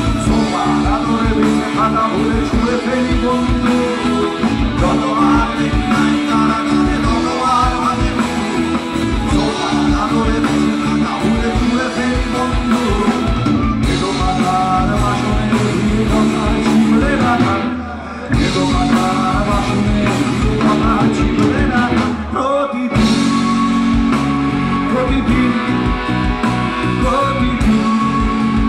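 Live rock band playing at full volume: male lead vocals over electric guitars, bass, keyboard and drums, with two brief breaks in the music about two-thirds of the way through.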